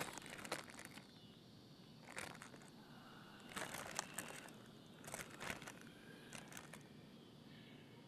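Crinkling of a Doritos chip bag being handled, in about five short rustling bursts.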